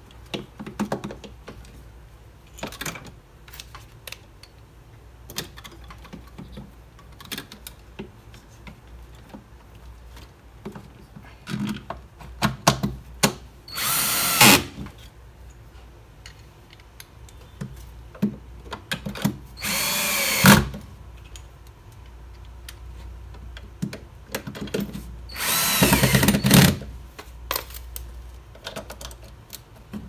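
Cordless drill-driver running in three short bursts of about a second each, a few seconds apart, driving in screws to mount a new drain motor on an LG top-load washer. Light clicks and knocks of parts being handled come between the bursts.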